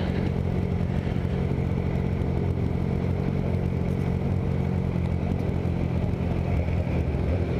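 Motorcycle engine running steadily at low speed, heard from on board the bike.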